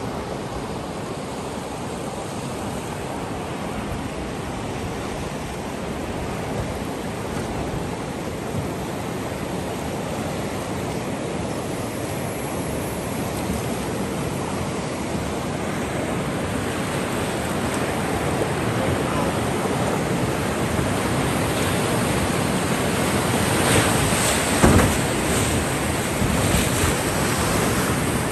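Rushing whitewater of a river rapid, growing steadily louder as the boat runs into it. Near the end come several sharp splashes of waves breaking over the bow.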